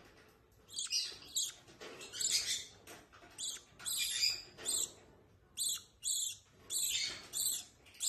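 Hand-fed baby lovebird chick making a run of short, high begging chirps, about two a second.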